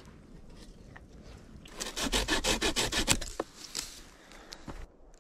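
Folding hand saw cutting through a pine branch: a quiet start, then a quick, even run of rasping strokes for about a second and a half, followed by a few lighter strokes.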